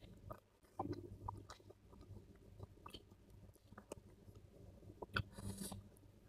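Faint mouth sounds of a man chewing food, with small clicks of a metal spoon. Near the end comes a brief slurp as he sips liquid from the spoon.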